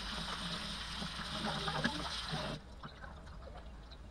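Kitchen tap running onto rohu fish pieces being rinsed over a steel sink, a steady splashing that stops abruptly about two and a half seconds in. Faint small handling ticks follow.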